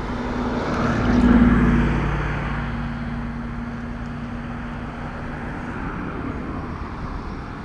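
An engine droning steadily, getting louder about a second in and then holding at a lower, even level, over a low rumble.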